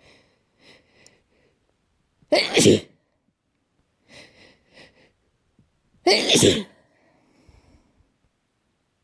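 A person sneezing twice during an allergy fit, the two loud sneezes about four seconds apart, each led by a few short catching breaths. The uploader puts the attack down to some kind of grass pollen.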